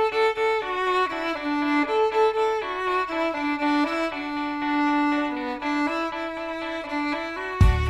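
Background music: a slow melody of long held notes, with a low bass beat and percussion hits coming in near the end.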